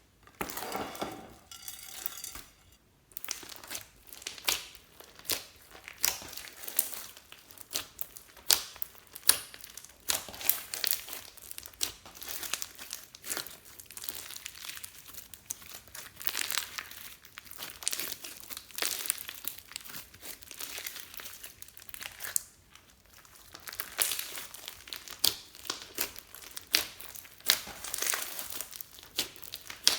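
Glossy slime being kneaded, stretched and squished by hand, giving a dense run of sticky clicks, pops and crackles, with a couple of brief pauses.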